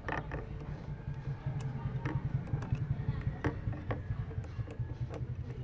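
Scattered short metallic clicks and knocks of a tubular socket wrench, lengthened with a pipe, working a tight screw loose from a washing machine's motor mount. A steady low hum runs underneath.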